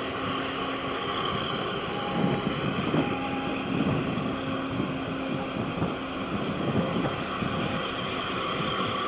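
Steady low rumble of marine engines from the container ship and the tug working against its side, with a faint steady hum and light wind noise on the microphone.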